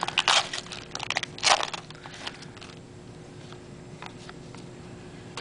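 Trading cards and their pack wrappers being handled: a few bursts of crinkling and rustling in the first two seconds, then quieter with a few faint clicks.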